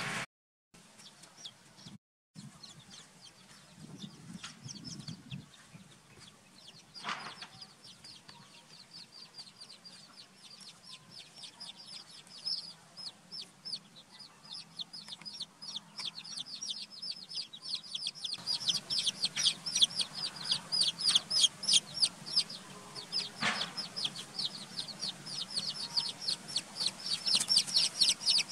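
Chicken chicks peeping: a continuous stream of short, high peeps that grows denser and louder about two-thirds of the way through.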